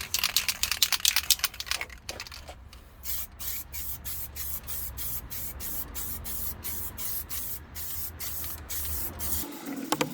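Aerosol spray can: a quick run of rattling clicks for about two seconds, then a string of short hissing spray bursts, roughly three a second, stopping about nine seconds in.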